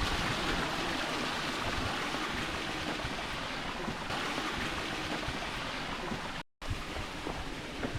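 Steady rush of flowing stream water. It cuts out completely for a moment about six and a half seconds in, then comes back quieter with a few light clicks.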